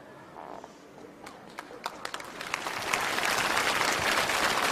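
Audience applause: a few scattered claps about a second in, swelling into full, steady applause by about three seconds.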